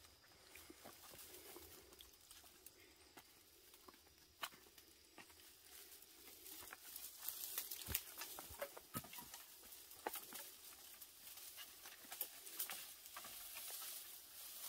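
Faint rustling and scattered crackles of a bundle of dry stalks being carried and handled, busier from about halfway through.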